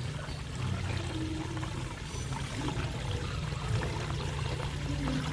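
Water pouring and splashing in a steady, low-pitched rush, with faint scattered ticks of droplets.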